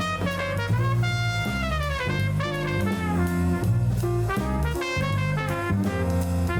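Background music: upbeat jazz with brass melody lines, walking bass and drum kit.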